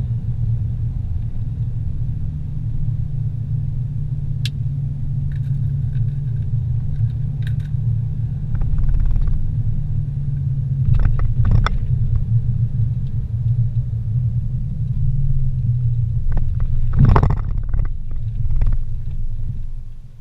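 A car driving on a paved road, heard from inside the cabin: a steady low rumble of engine and road noise, broken by a few short knocks and rattles, the loudest about seventeen seconds in.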